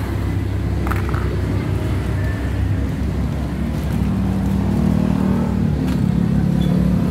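A motor vehicle's engine running steadily, a low rumble that gets a little louder and fuller from about four seconds in. A short rustle about a second in.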